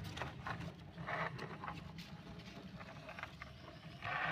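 Toy bus pushed by hand along a wooden plank: its wheels give a low rolling rumble, with scattered clicks and knocks. Short rasping scrapes come about a second in and again near the end.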